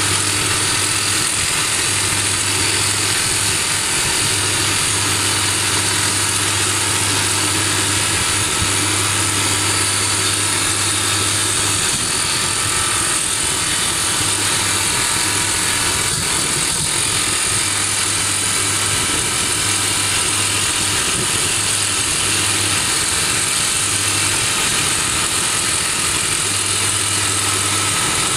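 SOOSAN STD14E top-hammer drill rig running steadily while drilling into rock, its engine and hydraulic drifter making a loud, even machine noise. A low hum in it drops away about twelve seconds in and comes back near the end.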